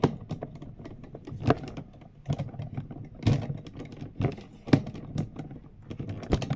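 Irregular clicks, taps and knocks of objects being handled close to the microphone, about a dozen in a few seconds with several louder knocks among them.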